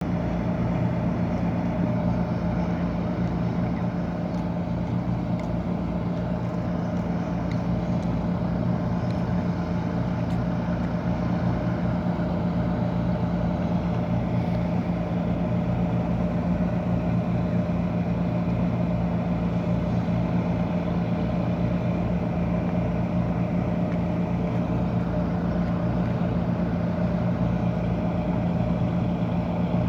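A working ship's engine and pumps running steadily, a constant drone with a fast low throb, over the rush of large amounts of seawater being pumped out.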